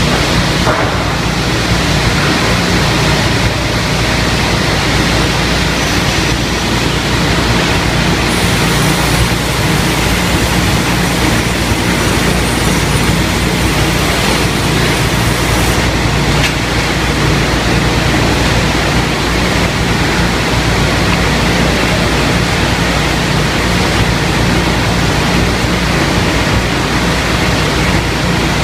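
Woodworking ripping machine running steadily with a constant low hum and even rushing noise, no cuts or knocks.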